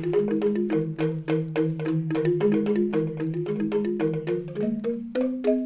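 Background music: a quick, even run of struck, pitched notes over a low sustained line, with about five or six note onsets a second.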